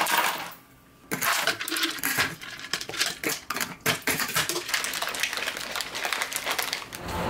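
A brief burst of hiss, then many light, irregular clicks and clatters of small hard objects being handled.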